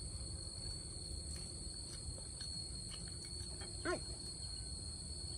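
A steady high insect whine with a low rumble under it and faint ticks, as of quail eggshells being cracked and peeled. About four seconds in comes one short squeaky call that rises and falls in pitch.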